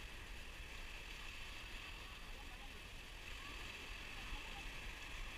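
Steady surf washing onto a sandy beach, with wind rumbling on the microphone and faint distant voices.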